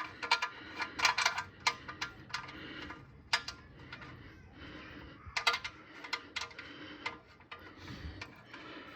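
Irregular metallic clinks and taps, a few sharp ringing clicks in small clusters, as the steel oil drain plug and hand tools are handled and the plug is threaded back into the oil pan.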